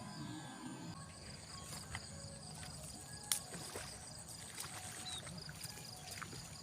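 Insects chirping steadily in a fast, even pulse, with scattered faint clicks and taps and one sharper click about three seconds in.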